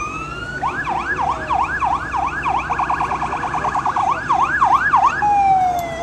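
Electronic emergency-vehicle siren running through its patterns. It rises in a wail, then sweeps up and down about two or three times a second, switches to a fast warble in the middle, goes back to the slower sweep, and falls off near the end. A low rumble runs underneath.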